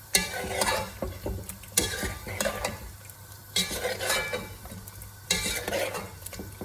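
A spoon stirring and scraping through sizzling chicken in a cooking pot, in about five sharp strokes a second or two apart, as yogurt is mixed in.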